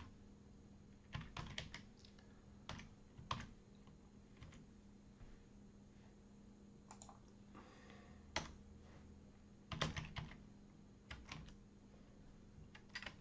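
Computer keyboard typing: faint, irregular keystrokes in short runs with pauses between.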